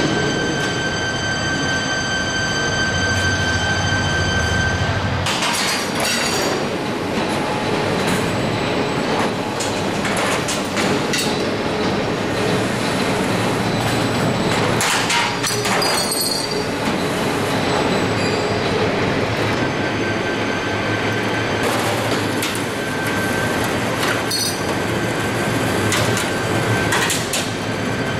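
Automatic sheet metal air duct production line running: a continuous loud machine din, with a steady high whine at the start and again in the last third. Several sharp metallic clanks stand out along the way.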